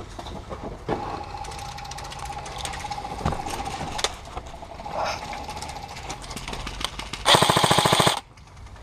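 Airsoft electric gun firing one full-auto burst of about a second near the end, a fast, even rattle. Before it a fainter rapid clatter with a steady whine comes and goes.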